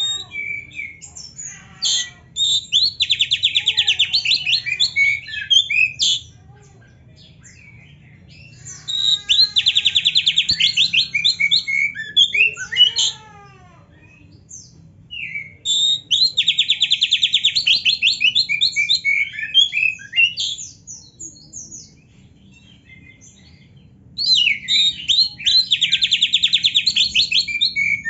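Oriental magpie-robin singing loud bouts of very fast, rolling canary-like trills, four of them, each a few seconds long, with scattered short whistles and chattering notes in the quieter gaps between.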